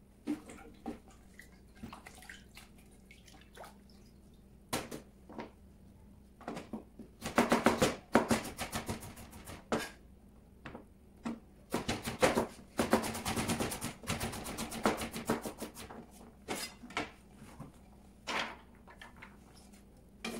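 Chef's knife chopping vegetables on a plastic cutting board. Scattered single taps come first, then two runs of fast, rapid-fire chopping strokes, the first starting about a third of the way in and the second just past the middle, before it goes back to occasional taps.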